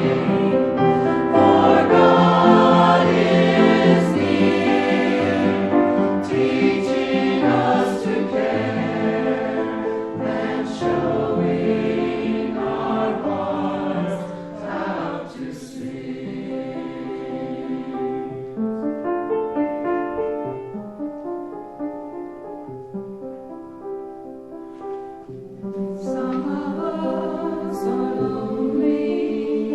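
Choir singing church music, softer through the middle and swelling again near the end.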